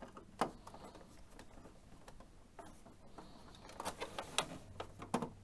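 Phillips screwdriver turning a screw out of the plastic top case of an Epson XP-55 inkjet printer: faint scraping with scattered small clicks, a few more together about four seconds in.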